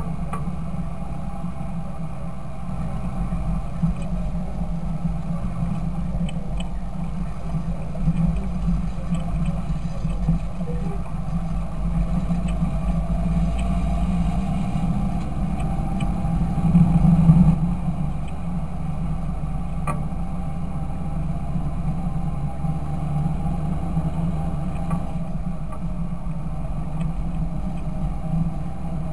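Fendt Favorit 926 tractor's diesel engine running steadily, briefly louder about 17 seconds in.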